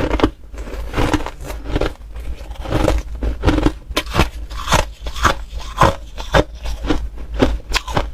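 Ice being bitten and chewed, a series of sharp, irregular crunches about two a second.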